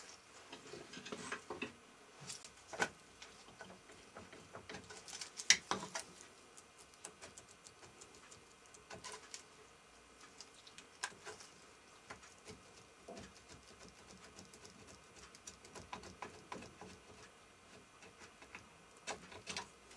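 Scattered light metallic clicks, taps and scrapes of hands and a small tool working the cover off a BSA three-speed motorcycle gearbox casing clamped in a vice, with the loudest knock about five and a half seconds in.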